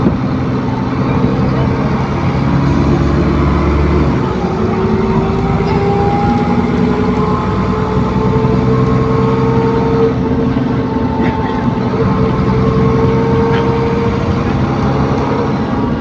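ADL Enviro400 Trident bus with a Voith automatic gearbox, its diesel engine running steadily as the bus is driven gently. About four seconds in the engine note changes, and a whine starts that rises slowly in pitch: the odd, whooshy 'hoover' sound this bus makes.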